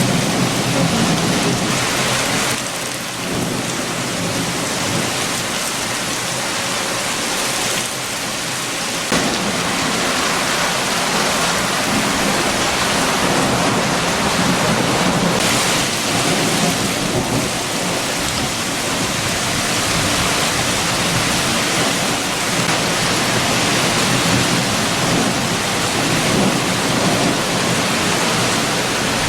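Heavy rain with strong wind: a dense, steady hiss of rain with a low rumble that rises and falls.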